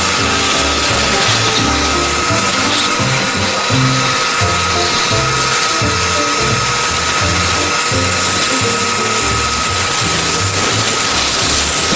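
Background music with a steady beat, laid over a band saw running and cutting through a glued-up scrapwood block.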